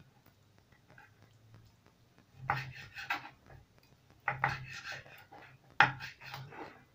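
Kitchen knife cutting raw chicken breast into chunks on a wooden chopping board, in three short bouts of slicing with the blade knocking on the board; the sharpest knock comes about six seconds in.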